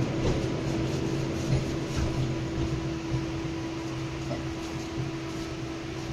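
Inside a 71-619 tram car moving along: wheel and running noise with a steady electrical hum, gradually getting quieter.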